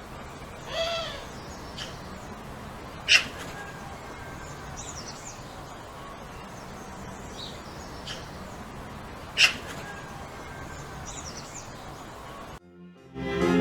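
Quiet village ambience: a short animal call, likely a cat meow, about a second in, two sharp clicks several seconds apart, and faint high bird chirps over a steady low hiss. Piano music starts near the end.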